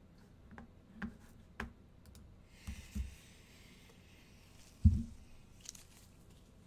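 A few sharp clicks and low knocks on a desk, with a soft rustle in the middle. The loudest is a single heavy thump about five seconds in.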